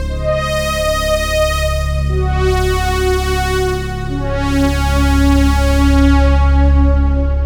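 Korg Minilogue XD four-voice analog polyphonic synthesizer playing sustained pad chords over a held low bass note, the chord changing about every two seconds, with the tone brightening and darkening as the chords swell.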